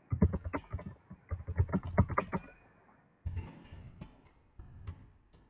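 Typing on a computer keyboard: quick runs of key clicks for the first couple of seconds, a pause, then slower scattered keystrokes.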